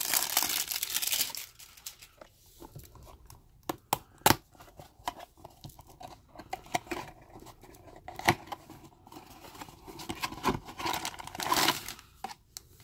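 Clear plastic shrink-wrap crinkling as it is stripped off a small cardboard box, then the box's cardboard flap and tab being pried open with scattered sharp clicks and snaps. More crinkling and tearing comes near the end.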